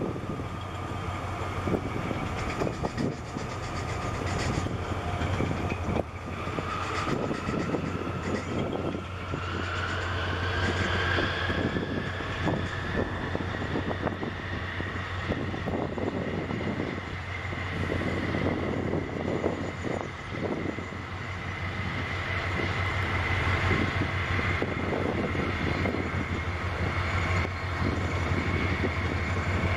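Harbour tug's diesel engines working hard against a container ship's hull: a steady low drone, with a whine that rises in pitch about seven seconds in and then holds steady.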